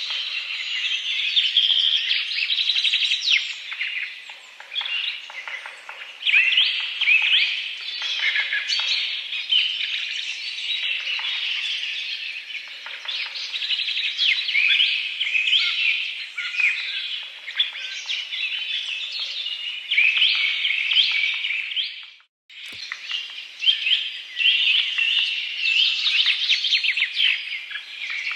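Dense chorus of many small birds chirping and twittering over one another without pause. About two-thirds of the way through the sound drops out for a moment with a click, then the chirping resumes.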